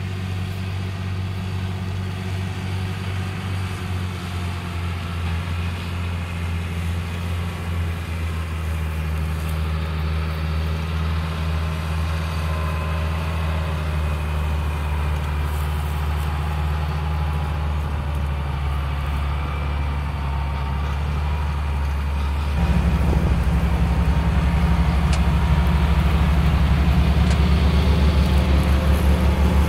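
John Deere tractor's diesel engine running steadily as it pulls front and rear mowers through grass, a constant low drone. About three-quarters of the way through it becomes suddenly louder and deeper, heard from inside the tractor's cab.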